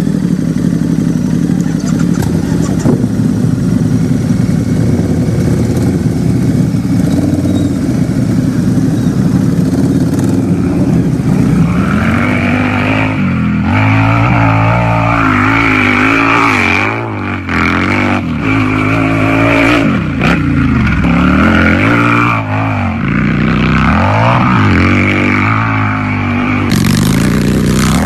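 Harley-Davidson motorcycle's V-twin engine idling steadily, then from about twelve seconds in being revved again and again, its pitch climbing and falling back with each blip of the throttle.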